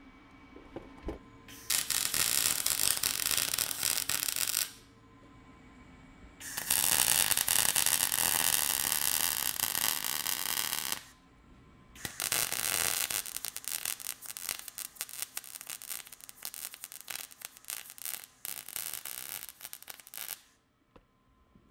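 Wire-feed welder arc crackling as bolts are welded onto the ends of steel pipe, in three separate welding runs, the last one more broken and sputtery.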